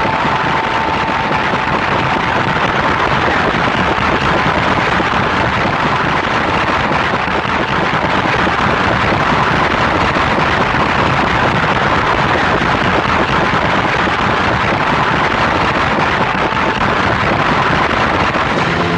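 A huge crowd cheering in a steady, unbroken roar.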